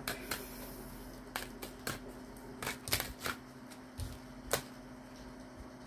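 Tarot cards being drawn from the deck and laid down: scattered light snaps and taps, about eight over several seconds.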